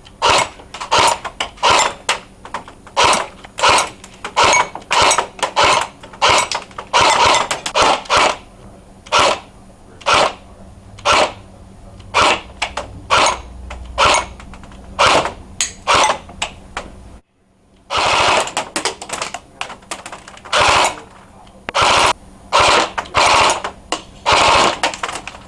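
Airsoft AK-pattern electric rifle (AEG) firing a run of short bursts and single shots, each a quick series of sharp cracks. The firing breaks off briefly about seventeen seconds in, then resumes.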